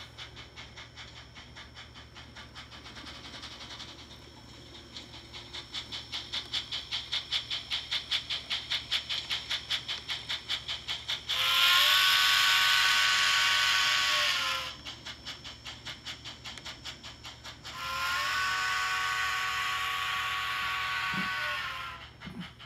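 Sound-equipped HO-scale model steam locomotive (Tsunami2 sound decoder) chuffing at about four beats a second, then blowing two long steam-whistle blasts, each sliding up in pitch at the start and down at the end, with steam hiss over the whistle and chuffing between the blasts.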